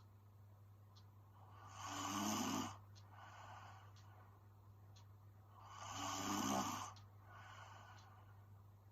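A sleeping woman snoring: two snores about four seconds apart, each followed by a softer breath, over a steady low hum.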